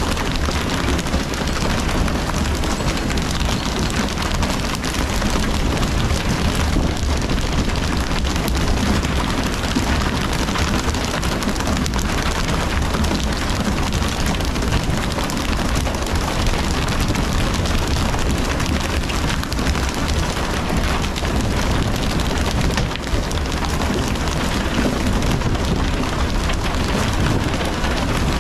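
Steady rushing hiss of water sprays and the sea splashing along the hull of a pole-and-line tuna boat, with a low rumble underneath.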